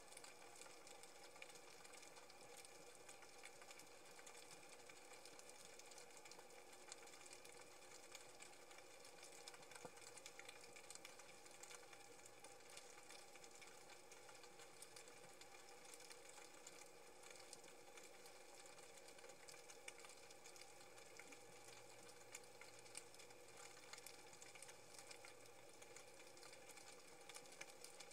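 Near silence: faint underwater ambience, a steady low hum with fine crackling.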